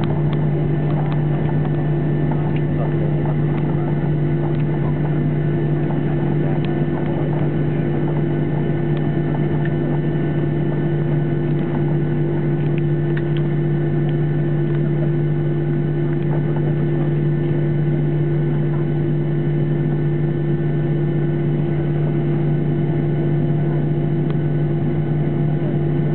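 Steady cabin noise of a Boeing 737-800 taxiing with its engines at idle: a low steady drone with a second hum above it over a wash of air noise.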